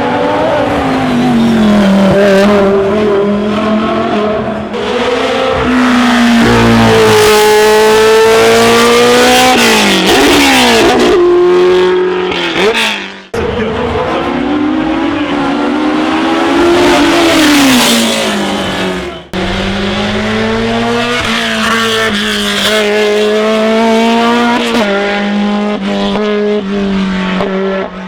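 Racing car engines at full throttle on a hillclimb, the pitch rising through the revs and dropping again at each gear change and lift for the corners, with some tyre squeal. The sound breaks off abruptly twice and starts again with another stretch of hard revving.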